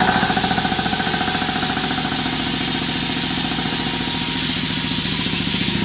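Quincy 325 belt-driven air compressor with a 5 hp electric motor, running steadily just after being switched on: fast, even pulsing from the pump under a strong hiss, as it charges its 80-gallon tank.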